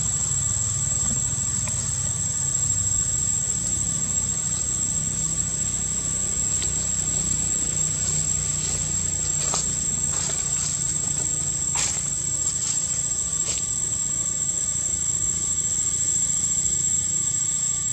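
Insects in the trees keep up a steady high-pitched drone, over a low rumble, with a few faint clicks about halfway through.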